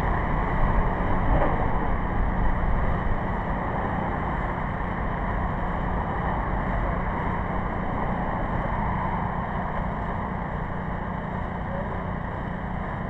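Small engine on an asphalt-sealcoating rig running steadily, driving the pump that feeds sealer through the hose. It is a little louder over the first few seconds, then even.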